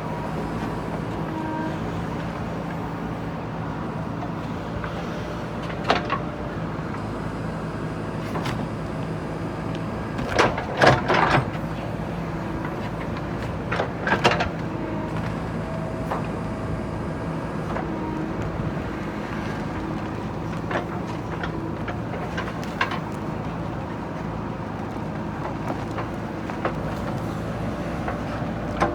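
JCB 3DX backhoe loader's diesel engine running steadily while digging, with hydraulic whines that come and go. Sharp metallic clanks break through a few times, loudest in a cluster about ten to eleven seconds in and again near fourteen seconds.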